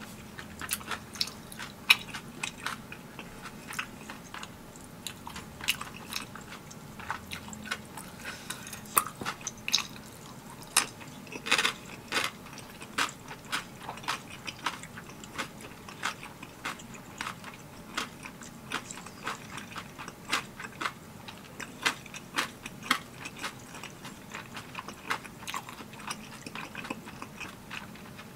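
Close-miked chewing of spicy tteokbokki: an irregular run of sharp, wet mouth clicks and smacks, several a second.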